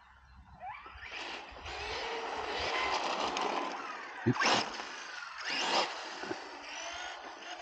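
Kyosho Scorpion RC buggy's brushless motor whining up and down in pitch with the throttle, over the rush of its tyres on tarmac. A sharper, louder burst about four and a half seconds in and a smaller one near six seconds.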